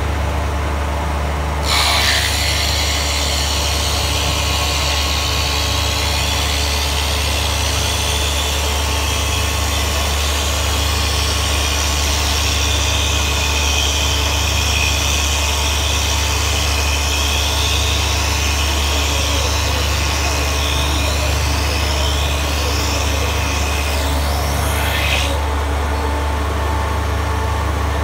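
Broom-handle rounding machine running with a steady motor hum. About two seconds in, a wooden handle fed through its rollers starts being shaved, adding a high cutting noise that stops about three seconds before the end.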